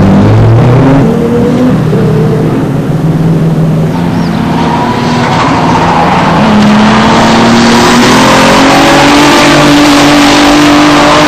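JUN-tuned Toyota Supra's twin-turbo 2JZ straight-six, built to over 800 hp, revving hard on track. The engine note falls and picks up again in the first few seconds, then climbs steadily under sustained acceleration from about five seconds in.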